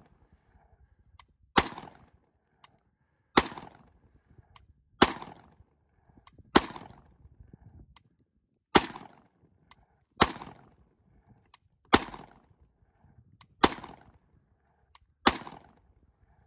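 Semi-automatic AK-pattern rifle fired nine times in slow, aimed succession, about one shot every one and a half to two seconds. Each sharp crack is followed by a short echo.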